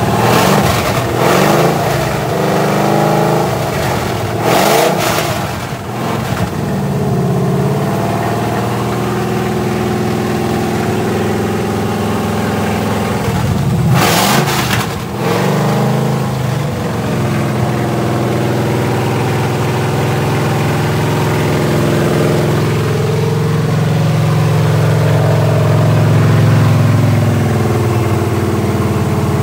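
Freshly built small-block Chevy V8 with a flat-tappet cam running loud through open tube headers during cam break-in. It is revved briefly several times in the first few seconds and once more about halfway, and otherwise held steady.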